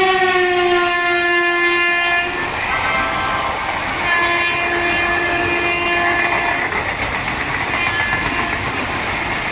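Horn of a passing WAP-4 electric locomotive sounding twice: a blast of about two seconds that dips slightly in pitch, then after a short gap a second, lower blast. Under both runs the steady rumble and wheel clatter of passenger coaches rolling past.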